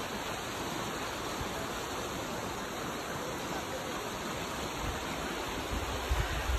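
Steady rush of creek water. Wind on the microphone adds low rumbles from about five seconds in.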